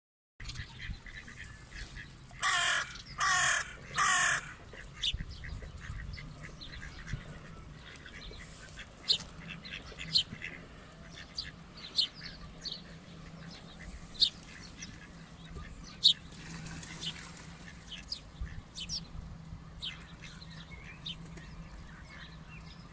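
A crow caws three times in quick succession about two and a half seconds in. After that, sparrows chirp in short, scattered, high notes, with a few sharper chirps standing out.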